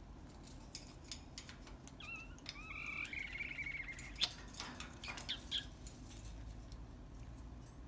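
Green-cheeked conure giving soft, quiet calls: a short call about two seconds in, then a longer wavering call lasting about a second and a half, and a brief high chirp near the middle, with scattered small clicks and taps.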